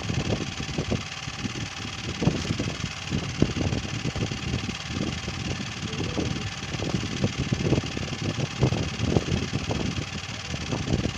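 A small engine running steadily, with irregular low rumbles and knocks over it.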